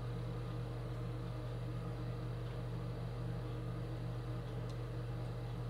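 Steady low hum with a faint hiss: room tone with no distinct event.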